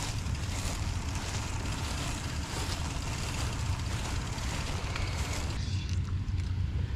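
Wind rumbling on a handlebar-mounted action camera's microphone, with a steady hiss that drops away about five and a half seconds in.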